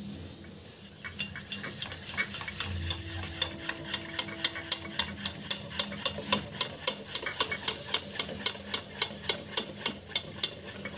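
Wire whisk beating semolina-and-bread appe batter in a steel pot, its wires tapping the pot's rim and sides in a steady rhythm of about four taps a second, with a wet stirring sound beneath. It is whisking in freshly added baking soda.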